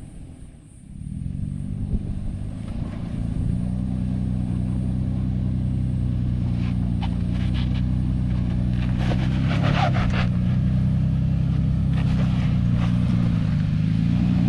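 Toyota Prado 120-series 4x4's engine running steadily, quiet for the first second or two and then louder and even. A few brief crackles come over it around the middle.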